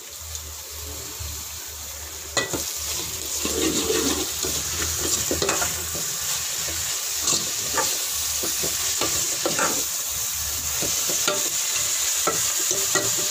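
Chopped onions, onion leeks and coriander leaves sizzling in hot oil, with a metal spoon stirring and scraping against the pot in many short strokes. The sizzle grows louder about two seconds in.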